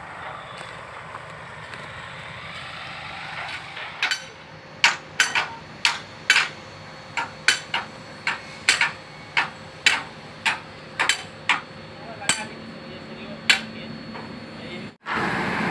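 Repeated sharp knocks, hammer-like blows struck irregularly about once or twice a second, starting about four seconds in and stopping shortly before the end, over a steady background noise. A sudden break near the end leads into louder steady noise with a low hum.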